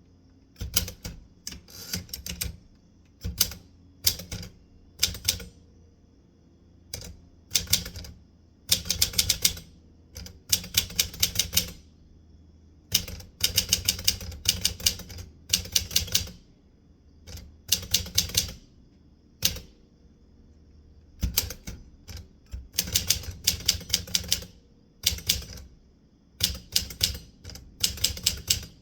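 Manual typewriter being typed on: bursts of rapid key strikes in clusters, with short pauses between words and phrases.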